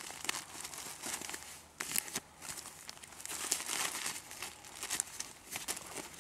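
Hands plucking feathers from a dead bird lying on a crinkly foil sheet: irregular rustling and crinkling with soft tearing as the feathers pull out, busiest about three to four seconds in.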